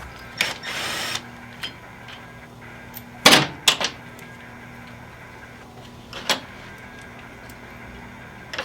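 Metal hand tools clinking and knocking against metal parts, a few sharp knocks a few seconds apart, with a brief scraping rustle near the start and a faint steady hum underneath.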